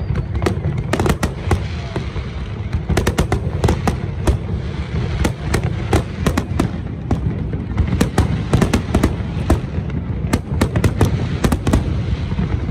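Aerial fireworks display: many shells bursting in quick succession, sharp bangs and crackling several times a second over a constant low rumble.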